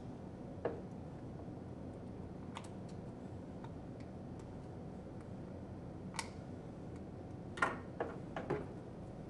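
Scattered light clicks and small plastic knocks from a gas detector's battery pack being handled and its quarter-turn screws worked with a small screwdriver, over a faint steady hiss. The loudest clicks come near the end, as the pack is brought back to the instrument body.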